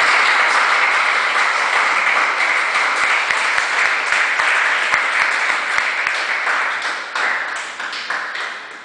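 A small group of people applauding, starting suddenly and dying away near the end.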